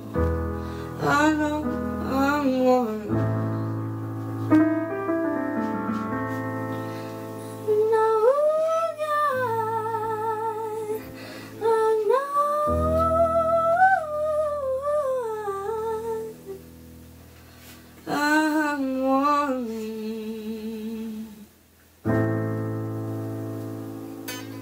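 A woman sings long wordless notes with a wide vibrato over sustained electric keyboard chords. Her voice swoops up and down between held notes. Near the end the music stops briefly, then a keyboard chord comes back in.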